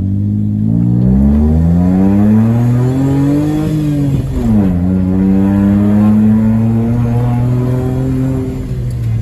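Suzuki Wagon R's three-cylinder engine through a straight-pipe exhaust, heard from inside the cabin while driving. The revs climb for a few seconds, drop sharply at a gear change about four seconds in, then hold steady and ease off near the end.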